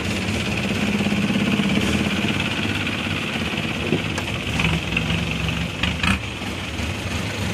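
Longtail boat's inboard engine running steadily, with a few short knocks about four to six seconds in.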